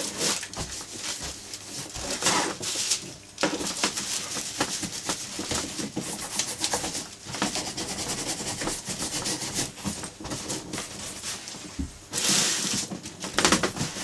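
Horsehair polishing brush buffing the dried cream polish on a leather briefcase to a shine: quick, light strokes making a continuous scratchy swishing, louder for a moment near the end.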